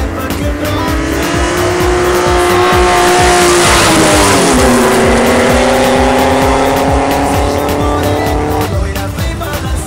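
Race car engine at full throttle on a dirt drag strip, its pitch climbing steadily, then falling sharply about halfway through as the car goes past and away, with a loud rush of tyre noise around the moment it passes.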